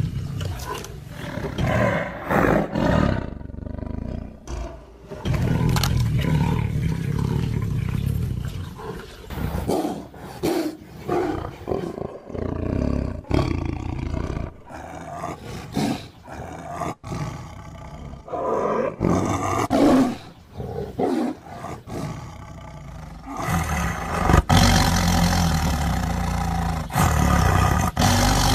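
Tiger roaring and growling: a string of calls, some long and deep, others short, with a louder, harsher stretch near the end.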